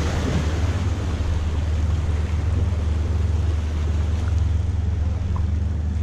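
Wind rumbling steadily on the microphone over waves washing against rocks along the shore. The splashing of the surf is loudest in about the first second.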